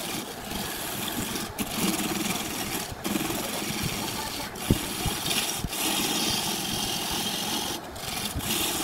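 Wood lathe turning a laminated wooden blank while a gouge cuts it: a steady hissing, scraping noise of shavings peeling off. It breaks off briefly several times.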